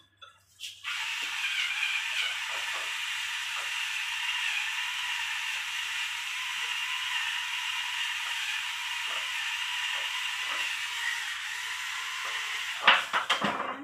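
Battery-powered electric pepper mill grinding over a bowl of minced pork, its motor giving a steady whir for about twelve seconds. A few sharp clicks and knocks follow near the end.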